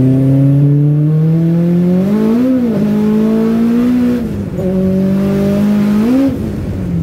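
Honda Prelude's turbocharged H22 four-cylinder engine heard from inside the car while driving: the pitch climbs steadily, swells briefly about two and a half seconds in, dips again around four seconds in and swells once more near the end before settling lower.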